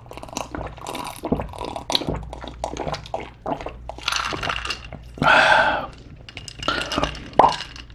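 A person gulping water from a glass in quick repeated swallows, close to the microphone. About five seconds in comes a loud, throaty sound from the drinker, and near the end a short sharp sound.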